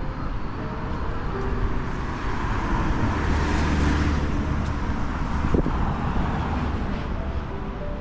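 Road traffic noise, with a vehicle passing close by and swelling loudest about halfway through.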